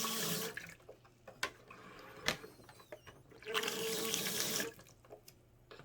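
Portable camping toilet's piston flush pump being worked: water sprays into the plastic bowl in two rushes of about a second each, one at the start and one about three and a half seconds in, each with a steady whine, and sharp clicks of the pump between strokes.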